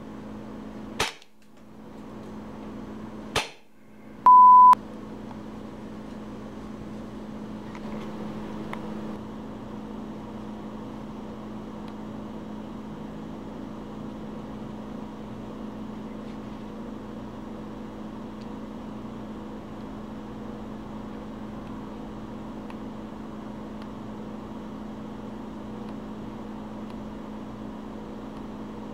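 Two sharp shots, about two and a half seconds apart, from a Western Arms 1911 gas blowback airsoft pistol firing through a chronograph. A short, loud, high electronic beep follows, then a steady low hum.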